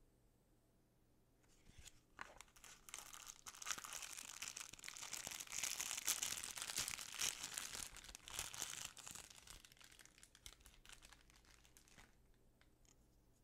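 Packaging being unwrapped by hand, crinkling and tearing. It starts about two seconds in, is loudest in the middle and fades away near the end.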